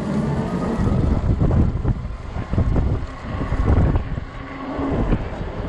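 Strong gusty wind buffeting the microphone as a rumble that swells and drops unevenly while the e-bike rides along.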